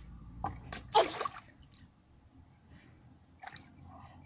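Water splashing in a plastic basin as a small child's hands slap and scoop in it: a few quick splashes about a second in, the loudest of them near one second, then quieter drips and small splashes.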